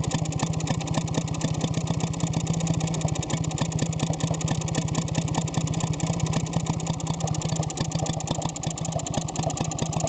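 1948–49 Villiers WX11 two-stroke water-cooled stationary engine, freshly rebuilt, running steadily with a fast, even firing beat.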